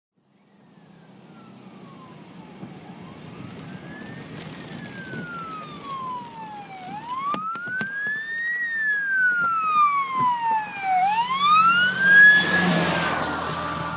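Fire engine's siren wailing in slow rising-and-falling sweeps of about four seconds each, growing louder as the truck approaches. It is loudest as the truck passes close by, about twelve seconds in, with a rush of noise, then fades as it moves away.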